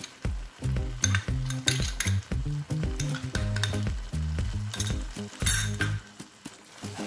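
Thick onion-tomato-cashew gravy cooking in ghee in a nonstick frying pan, sizzling with irregular pops and low bubbling sounds.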